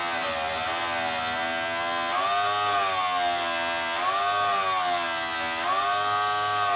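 Dremel rotary tool whining as it grinds a bevel into the edge of a plastic motorcycle fairing piece. Its pitch sags and recovers about every two seconds as the bit is pressed into the plastic and eased off.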